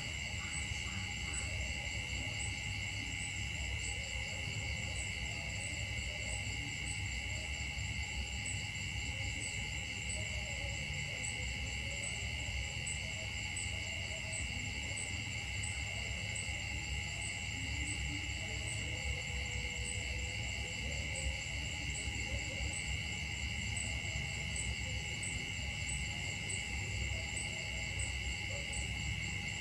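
Steady insect chorus: several high, unbroken tones held at an even level, the highest one pulsing faintly a little over once a second, over a low background rumble.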